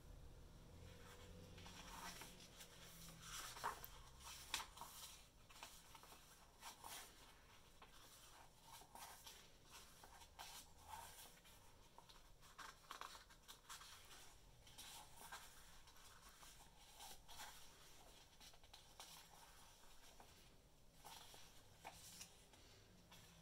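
Faint rustling of paper and soft clicks as the pages of a paperback book are handled and turned by hand, with a few sharper taps about four seconds in.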